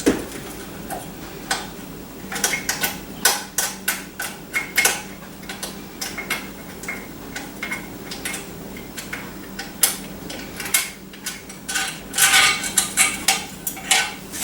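Irregular metallic clicks, clinks and knocks of tool hardware and hand tools being handled and fitted, with a quick cluster near the end.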